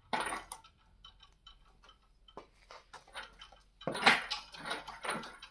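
Scattered metallic clinks and knocks at uneven intervals, the loudest about four seconds in, from an engine hanging on a shop crane's chains as it is turned and eased down into a car's engine bay.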